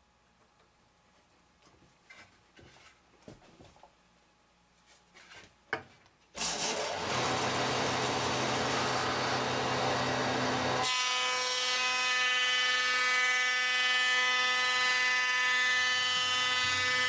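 A few light knocks and clicks, then about six seconds in a power planer starts suddenly and runs, planing a board down by a thirty-second of an inch. Near the middle its noisy sound gives way to a steady sound of many even tones, which lasts to the end.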